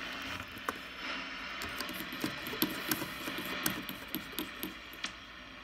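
Shortwave receiver hissing with static and scattered crackling clicks while its band selector is switched to shortwave and the dial is tuned across the 40-meter band.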